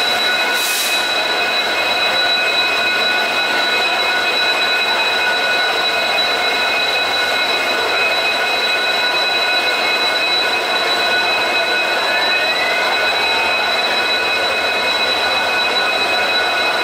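Steady running of a stationary train's diesel machinery: a constant drone with several high, unchanging whines over it, and a brief hiss about a second in.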